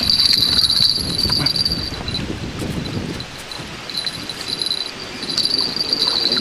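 Insects trilling: a high, fast-pulsing chirr that pauses briefly around the middle, over a low rumble.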